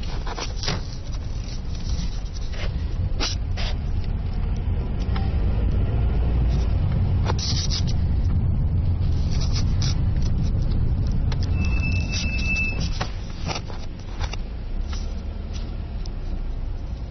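Car interior while driving slowly: a steady low engine and road rumble that swells in the middle, with scattered clicks and knocks. A short high beep sounds about twelve seconds in.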